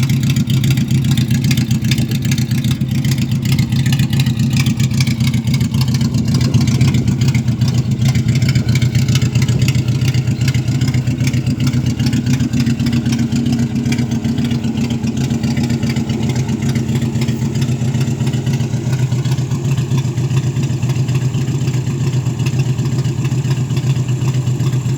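Ford Maverick's 2.3-litre OHC four-cylinder engine running steadily with a loud, deep rumble, holding an even speed without revving.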